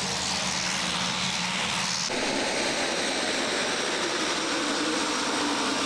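Twin-turboprop commuter plane's engines running as it taxis: a steady roar of turbine and propellers with a high turbine whine. The sound changes abruptly about two seconds in.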